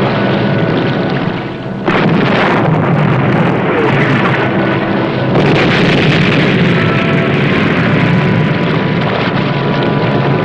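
Loud, continuous battle-scene sound effects: engine noise mixed with explosions. It jumps suddenly louder about two seconds in and again about five seconds in.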